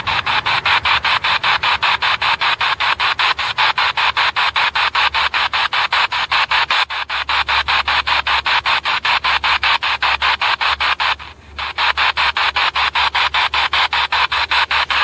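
Spirit box sweeping through radio stations: a steady, choppy hiss of static chopped into short bursts about five times a second, with a brief dropout about eleven seconds in.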